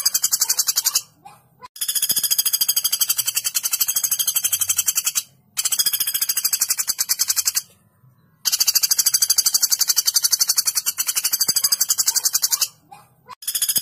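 Common flameback woodpecker (pelatuk bawang) giving long, fast rattling trills. Each trill runs for several seconds, with short pauses between them.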